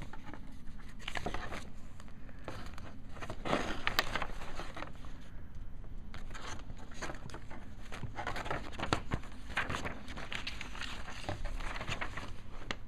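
Plastic model-kit runners and their plastic packaging being handled and turned over: irregular crinkling and light clicks.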